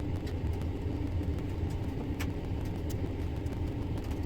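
Steady low hum from a Pioneer CT-F7272 cassette deck running in play, with a few faint clicks as its tape head is adjusted.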